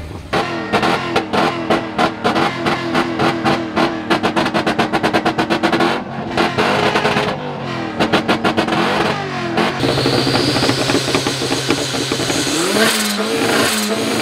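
Tuned car engine revved hard and held at the rev limiter, its note stuttering as the limiter cuts in and out many times a second. After about ten seconds it settles to a steadier, lower note, and the revs climb again near the end.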